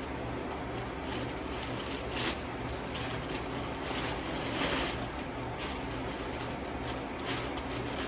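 Plastic mailer bag rustling and crinkling as it is pulled open and handled, with louder bursts about two and four and a half seconds in, over the steady low hum of a ceiling fan.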